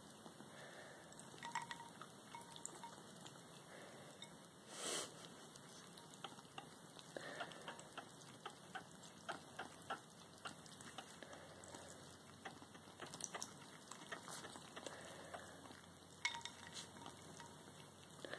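Ice cubes in water in a ceramic bowl faintly clinking and ticking against each other and the bowl as ferrets nose at them, with light splashing. One brief louder rush of noise comes about five seconds in.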